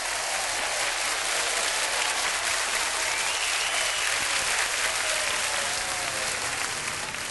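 Theatre audience applauding steadily at the end of a song, a dense, even patter of many hands clapping.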